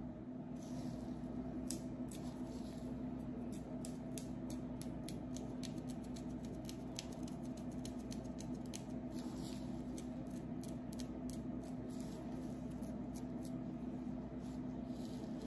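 Fingernails scratching and picking at a dry, flaky scalp close to the microphone, giving a quick, irregular run of crisp scratchy ticks. A steady low hum runs underneath.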